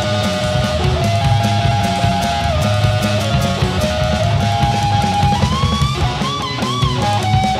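Live blues-rock trio: an overdriven Stratocaster-style electric guitar through a Marshall amplifier plays a lead line of held notes, with a rising string bend about five seconds in and wavering vibrato after it, over bass guitar and drums.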